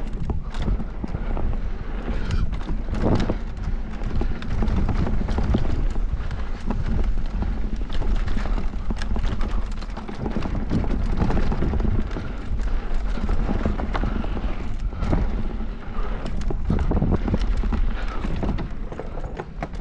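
Mountain bike clattering over a rough downhill trail: many irregular knocks and rattles from the tyres, frame and chain on rocks and roots, over a steady low rumble.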